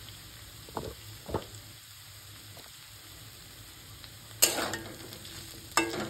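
Metal spatula stirring and scraping diced potatoes around a kadhai over a faint sizzle of oil. A couple of light taps come in the first second or so, and loud scraping strokes start about four seconds in.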